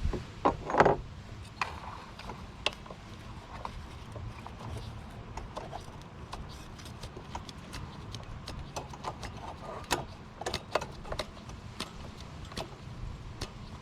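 Small irregular metal clicks and handling noises as the choke nut is threaded onto an ATV carburetor, with a few sharper clicks about ten seconds in.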